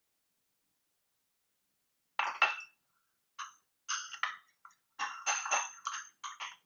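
A metal spoon clinking against a small bowl while stirring melted chocolate, a run of quick light ringing clinks starting about two seconds in.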